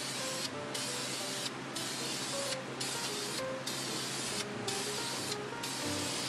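Aerosol can of VHT Wrinkle Plus black wrinkle paint spraying in about seven short hissing passes, each under a second long with brief breaks between them, laying on a thick wet coat of wrinkle finish.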